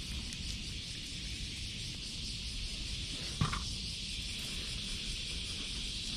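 Steady outdoor background sound: an even, high hiss over a low rumble, broken by one short, sharp sound about three and a half seconds in.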